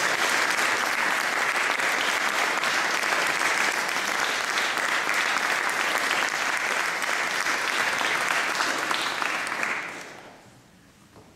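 Audience applauding steadily, dying away about ten seconds in.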